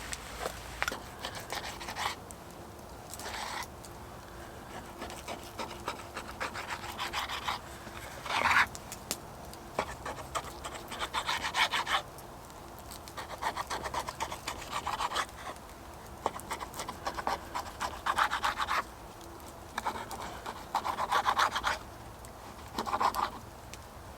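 Rough scraping strokes on wood in irregular bursts of about one to two seconds, with short pauses between them.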